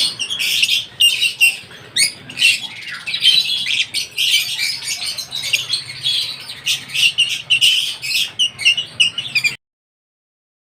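A flock of lovebirds chattering and squawking, many sharp high chirps overlapping. The sound cuts off abruptly about nine and a half seconds in.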